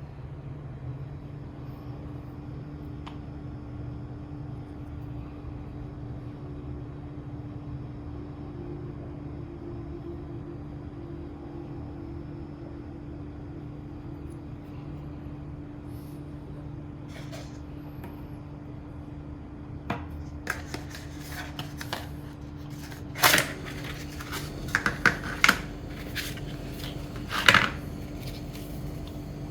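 Steady low background hum for about twenty seconds, then a run of sharp clicks and short rattles from small hard objects being handled, several of them loud.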